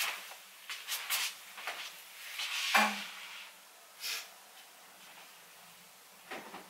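Scattered knocks and rustling as someone moves about and handles things in a room. There is a sharp knock at the start and a louder rustle nearly three seconds in.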